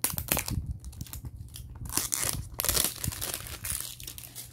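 Packaging crinkling and tearing in irregular bursts as a small cosmetics box is unwrapped by hand, loudest in the second half.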